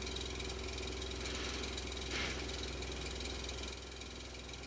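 Steady low hum with hiss, and a faint brief noise about two seconds in.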